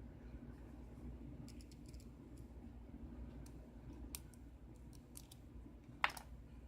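Faint, scattered clicks and taps of a lock cylinder and small picking tools being handled, with one sharper, louder click about six seconds in.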